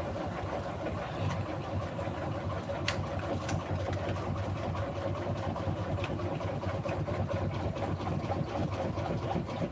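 Beko WMY81283LMB2 washing machine running steadily in a service-mode spin with its drum unbalanced and water-locked, a constant motor drone with a couple of faint clicks about three seconds in.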